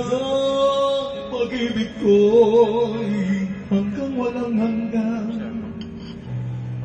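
A man sings live into a handheld microphone over the band's accompaniment. He holds a long note in the first second or so, and later notes waver with vibrato.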